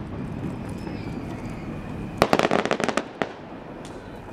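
Aerial fireworks: about two seconds in, a rapid string of sharp pops and crackles lasts under a second, followed by one last pop.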